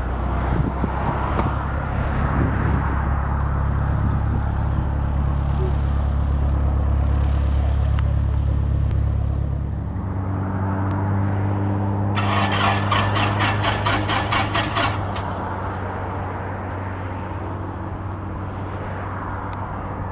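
Light-aircraft piston engine at taxi power, a steady low hum. After a cut about halfway through, a Piper PA-28 Cherokee's engine idles close by as a steady drone with a clear pitch, with a rapid rattling for about three seconds in the middle.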